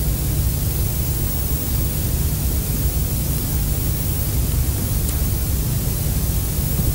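Steady hiss over a low hum, unchanging throughout, with no distinct event in it.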